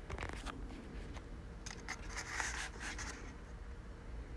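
Kraft paper mailer envelope being handled, the paper rubbing and rustling softly with a few light clicks and taps.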